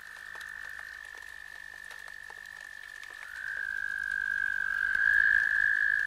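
A frog calling in one long, continuous high trill that grows louder after about three seconds, with faint scattered clicks.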